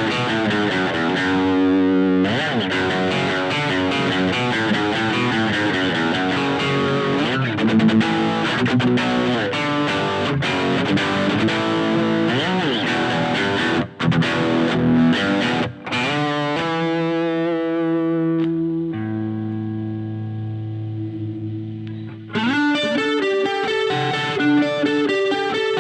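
Electric guitar played through a Blackstar Fly 3 mini amp with distortion: lead lines with several string bends, broken by two brief gaps in the middle. Then a held chord with a duller tone, before bright playing resumes a few seconds before the end.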